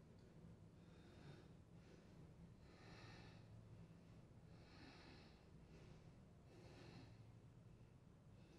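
Faint breathing through the nose, a soft breath about every two seconds, from a woman holding a forearm-stand split, over near-silent room tone with a low steady hum.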